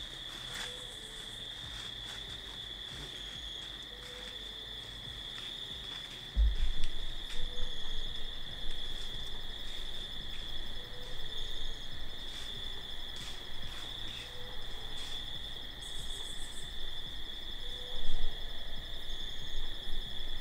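Steady chorus of crickets, a continuous high trill. About six seconds in, a low rumbling noise on the microphone comes in and stays, with a brief louder bump near the end.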